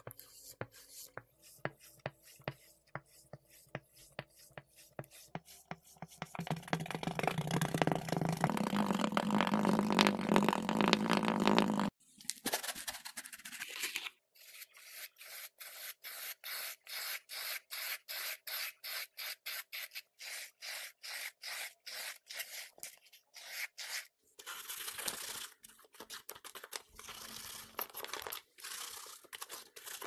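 Kinetic sand being cut and scraped with a stick and a craft knife, a series of soft crunching scrapes. About halfway through, a louder, denser crumbling stretch stops abruptly, followed by a quick run of short slicing strokes through a moulded sand block.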